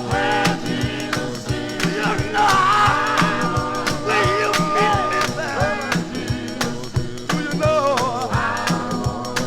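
Male gospel group singing in close harmony, holding long wavering notes over a steady beat.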